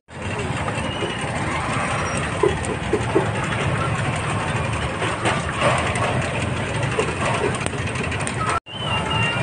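Street ambience dominated by a steady low engine rumble of motor traffic, with a few short knocks about two and a half to three seconds in. The sound drops out abruptly for a moment near the end, then resumes.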